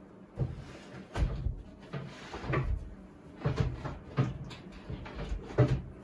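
A series of irregular knocks and clunks, about seven in all, from objects being handled and bumped during cable work at a desk. The last, near the end, is the loudest.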